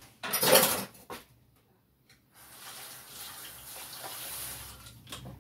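A short clatter in the first second, then a kitchen tap running steadily for a couple of seconds into a stainless steel mixing bowl held at the sink.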